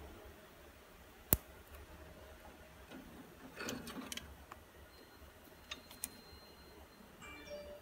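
Small plastic and metal parts of an exercise bike's resistance adjuster being handled and fitted: one sharp click about a second in, a short run of clicks and rustling near the middle, then a few light ticks.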